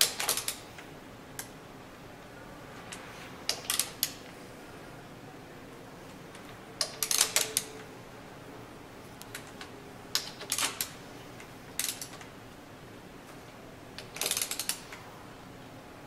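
Socket wrench clicking in short clusters of sharp metallic clicks, about six bursts a few seconds apart, as the outlet valve plate bolts of a General Pump MWSR pump are torqued down in sequence.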